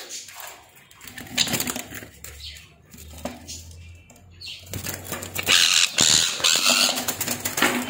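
A pet parrot's wings flapping close by in several rushing bursts, the longest about five and a half to seven and a half seconds in, amid scattered knocks and rustles.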